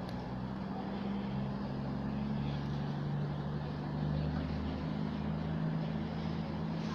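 CrossCountry Class 220 Voyager diesel multiple unit pulling away from the platform, its underfloor diesel engines running under power with a steady low engine note.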